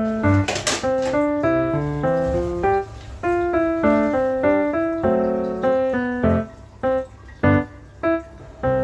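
Background piano music, a steady run of keyboard notes, with a brief bright crash about half a second in.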